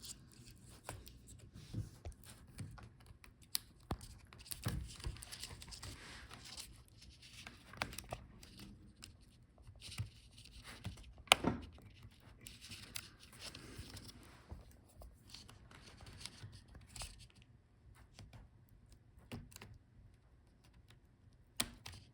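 Small clicks, scrapes and rustling of hands working on the inside of a Dell Inspiron 16 5625 laptop while disconnecting its DC power jack cable, with a sharper click about 11 seconds in.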